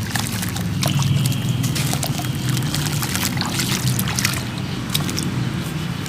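Sand-cement crumbling and crunching: a dense run of small crackles and taps over a steady pouring, trickling sound of falling grit.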